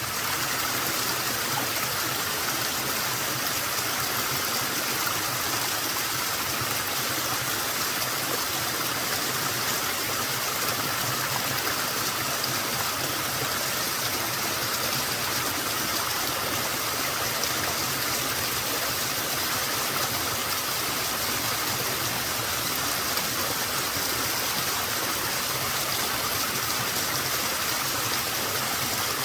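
Small waterfall with a somewhat low flow, its water falling and splashing in a steady, even rush.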